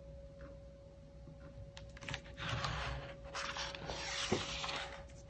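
Large paper pages of a hardcover picture book rustling as they are turned over and the book is closed, starting about two seconds in, with a light knock a little after four seconds.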